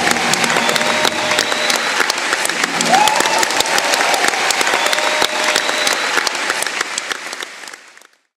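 Live concert audience applauding at the end of a song, dense steady clapping that fades away and cuts off near the end.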